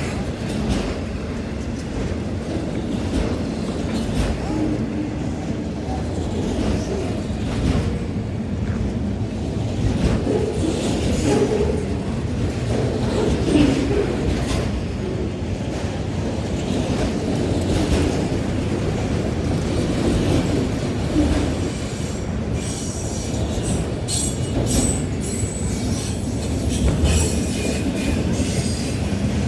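Cars of a CSX manifest freight train rolling past, steel wheels clicking over the rail with a steady rumble. High-pitched wheel squeal comes in during the last several seconds.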